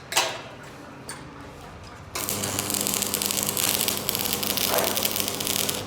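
Electric arc welding: the arc strikes about two seconds in with a steady crackling hiss over a low electrical hum, runs for three to four seconds and stops abruptly near the end. A single sharp click comes just before.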